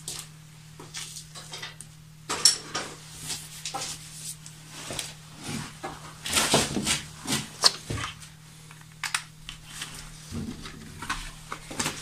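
Irregular handling clatter: knocks, clicks and plastic rattles as a new hot-glue stick is fetched and loaded into a glue gun and a plastic bucket lid is moved into place, busiest a little past the middle. A steady low hum runs underneath.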